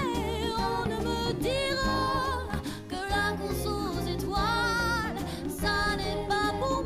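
Background song with a singing voice over guitar accompaniment.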